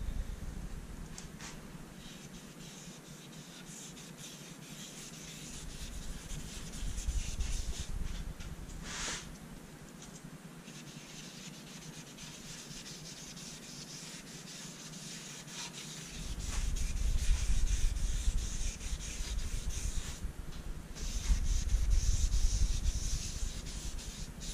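A cloth pad rubbed back and forth over the bare maple top of a guitar body, wiping on dye: a soft scrubbing hiss that swells and fades with the strokes. A low rumble joins in about two-thirds of the way through.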